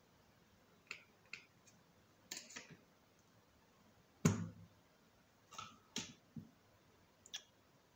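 Scattered small plastic clicks and taps from handling the opened housing and parts of a rugged smartphone, about a dozen in all, with one louder knock about four seconds in.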